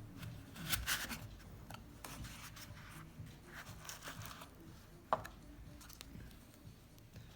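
Hands handling packaging: rubbing and rustling with scattered light clicks, and one sharper click about five seconds in.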